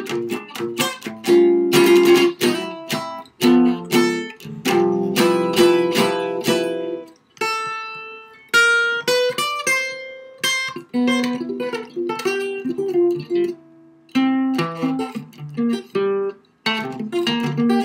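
Archtop guitar played solo in jazz chord style: groups of plucked chords, a short single-note melody line about halfway through, then chords again.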